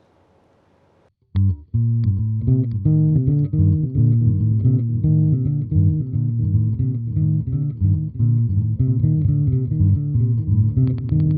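Electric bass played through a Catalinbread Csidman delay pedal: a repeating riff of low plucked notes with delay repeats, starting after about a second of quiet. Near the end the sound turns into a rapid stutter.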